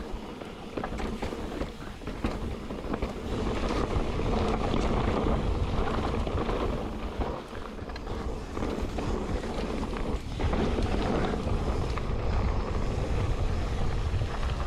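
Mountain bike riding fast down a rutted dirt trail: wind buffeting the microphone over tyre rumble and the clatter of the bike over bumps.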